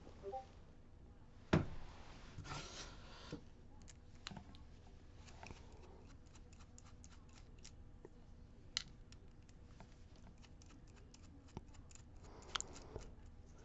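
Ruko DP2 lock being handled and worked: scattered small metal clicks and ticks, with one sharper knock about a second and a half in.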